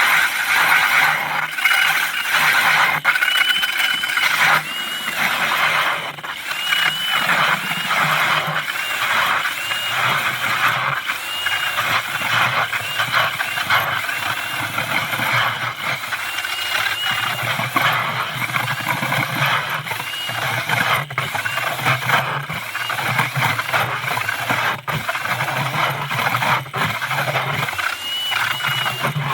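Power ice auger drilling a hole through the ice: a steady mechanical run with a high whine that wavers up and down as the blades cut.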